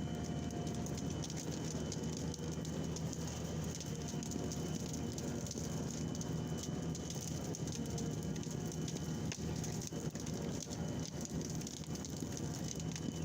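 Heavy forestry machine's diesel engine running steadily, with a dense, continuous crackling and snapping over it.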